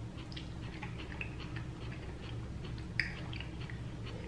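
Close-miked chewing with the mouth closed: a string of small wet clicks from the mouth, with one sharper click about three seconds in.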